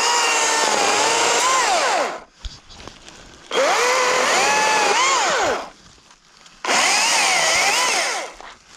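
Chainsaw cutting wood in three bursts. Its whine sags and climbs as the chain bites and frees, and it stops fully between bursts.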